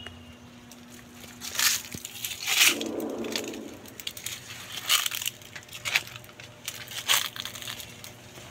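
Dry leaves and gravel crunching, about five irregular sharp crunches with a duller rustle after the second.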